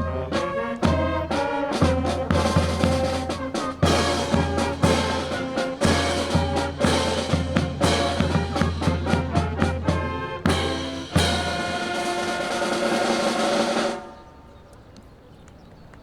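Upbeat music with brass and drums and a steady bass-drum beat, ending on a held final passage that cuts off about two seconds before the end, leaving a quieter background.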